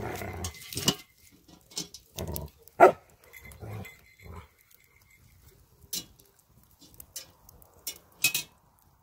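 Dogs fighting, barking in a string of short bursts, the sharpest and loudest about three seconds in.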